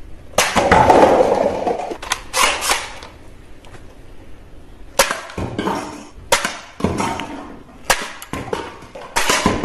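Toy foam-dart blaster firing at a stack of paper cups and plastic bowling pins: a long clatter of cups tumbling about half a second in, then several more sharp knocks and shorter clatters as further cups and pins are hit and fall.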